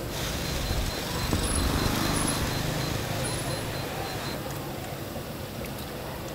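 Steady background hum of road traffic, with faint indistinct voices in the first few seconds.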